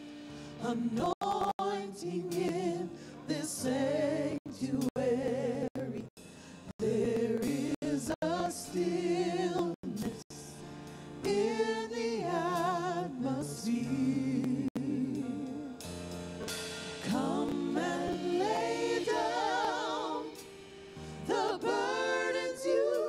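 Worship song: singing with wavering held notes over electronic keyboard accompaniment, broken by several brief dropouts in the audio.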